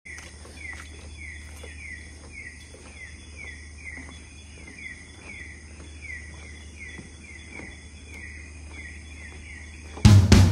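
Tropical rainforest night chorus: a steady high insect drone with a short falling chirp repeated about two or three times a second, over a low steady hum. Drum-led music cuts in near the end.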